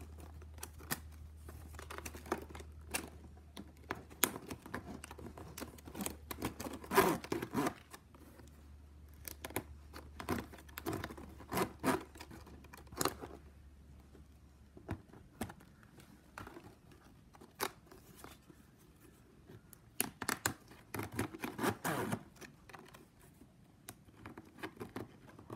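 Stiff plastic strapping band being worked by hand through a woven bag: irregular scratchy rustles and sharp clicks of the plastic strips, with longer scraping rubs about a quarter of the way in and again near the end.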